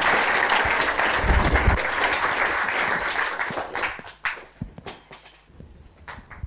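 Audience applauding at the end of a talk. The applause dies away about four seconds in, leaving a few scattered claps.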